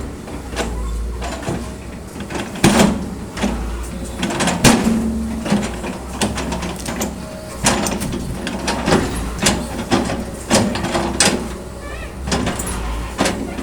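Hitachi excavator's engine running with a low rumble, under irregular knocks and clunks of logs being gripped and stacked.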